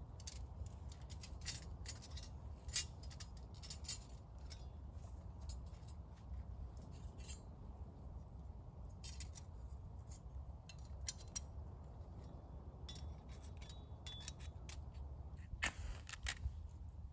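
Thin metal panels of a folding camp stove clicking and clinking as they are unfolded and slotted together, in runs of light clicks with short pauses. Near the end, a short scratchy burst as a match is struck.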